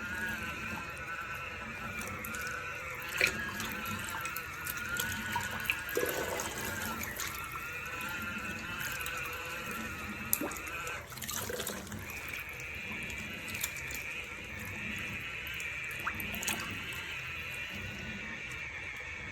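Portable ultrasonic turbine washer running in a basin of water with dishes, a steady wavering whine over water sloshing, with a few sharp clinks and knocks of the dishes and pans.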